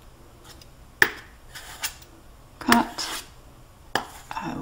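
Metal palette knife tapping and scraping against a plastic palette while mixing oil paint: a handful of separate sharp taps and short scrapes.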